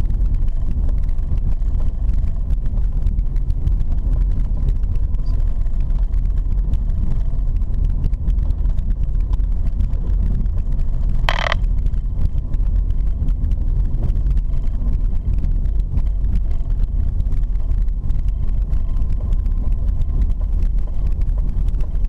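Steady low rumble inside a car driving on an unpaved dirt road: engine and tyres on the rough surface. A brief sharp sound cuts in about halfway through.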